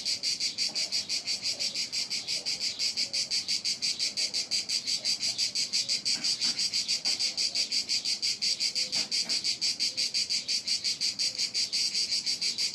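An insect chirping loud and high-pitched in a fast, even pulse of about six or seven chirps a second, without a break.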